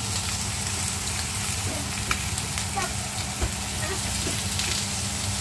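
Skewered pork sizzling on a hot ridged grill pan, a steady hiss with a constant low hum underneath.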